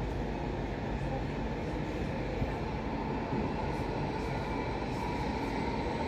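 Train running past on the rail line, a steady rumble with no sudden knocks or squeals.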